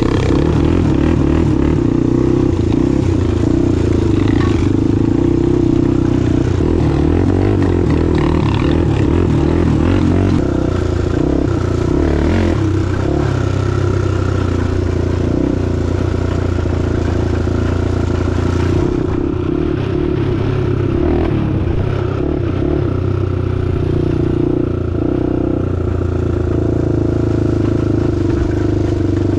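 Honda 400EX-based quad's single-cylinder four-stroke engine running loudly and steadily, its revs shifting a few times.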